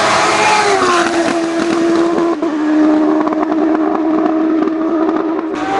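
Race car engine running hard at high revs on a hill climb; its pitch dips slightly about half a second in, then holds steady.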